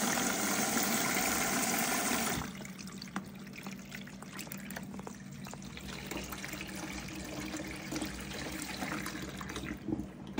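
Front-loading washing machine filling: water gushes through the detergent drawer and cuts off abruptly about two seconds in. After that come quieter sloshing and light knocks from the wet laundry tumbling in the drum, over a steady low hum.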